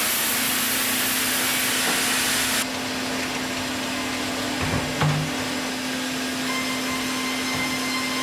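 Sawmill band saw cutting lengthwise through a large timber, a loud hiss that stops about two and a half seconds in, over the steady hum of the mill machinery. A couple of knocks come about five seconds in.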